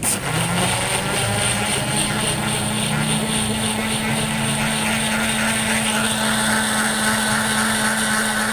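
Electric countertop blender running at speed, liquidising sliced strawberries with water, lemon juice and sugar. It starts abruptly and runs as a loud, steady motor hum with a high whine; a second, higher tone joins about six seconds in.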